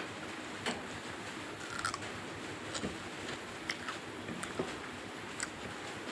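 Close-up mouth sounds of a person eating mutton curry and rice: chewing with sharp smacks and clicks about once a second.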